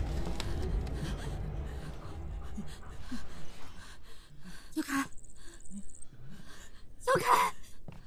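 Tense film soundtrack: a low rumble fades away, then near quiet with small scattered noises. A person gasps sharply about five seconds in, and there is a short frightened cry near the end.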